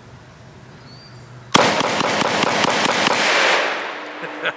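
Vepr 12 semi-automatic 12-gauge shotgun fired in a rapid string of shots, starting about a second and a half in and lasting about two seconds before the sound dies away.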